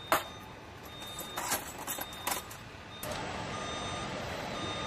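Metal hand tools clinking a few times as they are handled in a tool kit. Under them a short electronic beep repeats about once a second, and after about three seconds a steady rushing background noise takes over.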